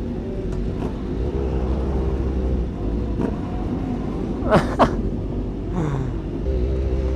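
Engines of motorcycles and cars running steadily with a low rumble, with two quick, sharp blasts of revving a little past the middle.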